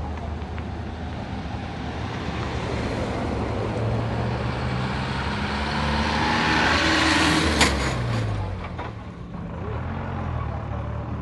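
A large vehicle's engine running, swelling to its loudest about seven seconds in, with one sharp click at the peak, then easing off.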